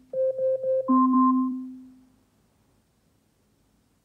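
Amazon Echo smart speaker ringing on its own: four quick electronic chime notes, then a lower held tone with a brief higher figure over it, dying away about two seconds in. It keeps ringing although no alarm, timer or call is set.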